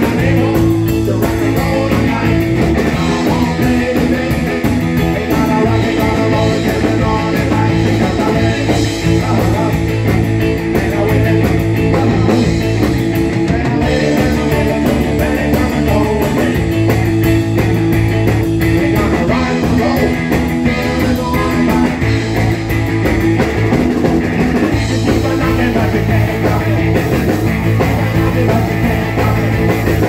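Live rock band playing loud: a Telecaster-style electric guitar and an electric bass over a steady drum beat, with a man singing lead.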